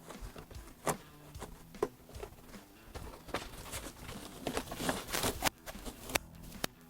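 Scattered light clicks, taps and scrapes of hands working at a van's seat and interior trim while pushing wire through. There are several sharp clicks, the clearest about a second in and near the end.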